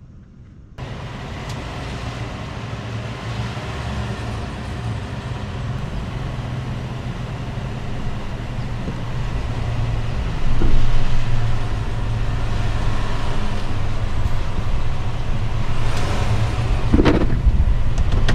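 GMC Sierra pickup's 5.3-litre V8 running steadily under way, a continuous engine drone with road noise. It grows gradually louder, jumps in level about ten seconds in, and has a short louder sound near the end.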